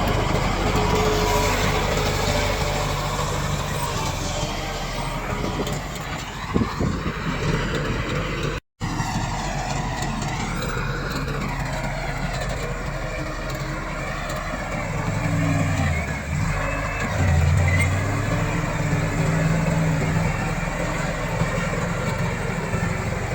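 Komatsu D68 bulldozer's diesel engine running steadily as it works, with a few clanks. The sound breaks off for an instant about nine seconds in, and near the middle of the second half the engine note dips and rises twice.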